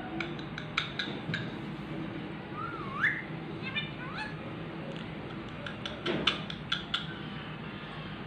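Pet parrot whistling: two short rising whistles, one dipping before it climbs, among scattered sharp clicks that bunch together about two-thirds of the way through.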